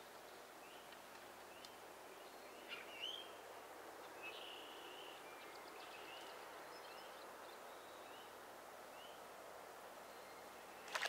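Faint outdoor ambience with small birds chirping: short rising chirps repeated about once a second, with a louder call about three seconds in and a longer held note just after four seconds.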